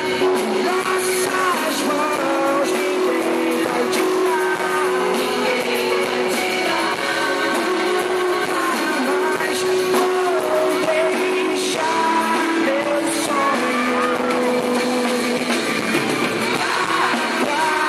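Pop-rock song with a sung vocal line over a band with guitar.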